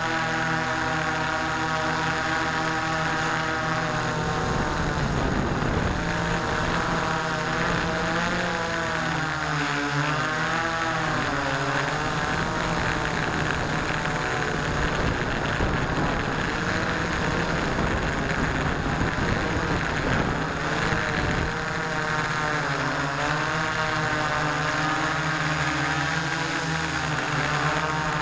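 Electric motors and propellers of an S650 hexcopter running in flight, heard from on board: a dense, steady buzzing hum of several close pitches. From about four seconds in to about twenty-two seconds the pitches waver up and down and a low rumble joins in, then the hum settles steady again.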